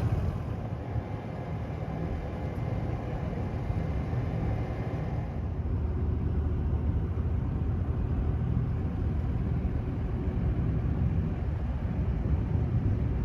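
Sailboat's engine running steadily under way, a low, even hum.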